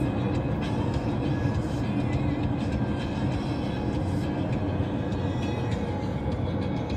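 Steady road and engine noise heard from inside a moving car's cabin at highway speed.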